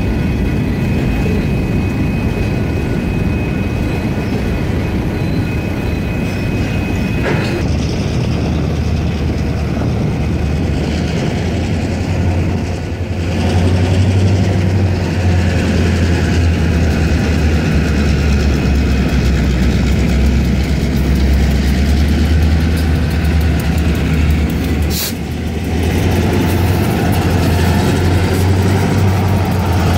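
A slow freight train of covered hoppers and boxcars rolls over a grade crossing, with a steady high wheel squeal for the first seven seconds or so. From about eight seconds in, the deep drone of the EMD GP38-2 diesel locomotives' two-stroke V16 engines takes over as they near the crossing. The crossing's electronic bells ring throughout.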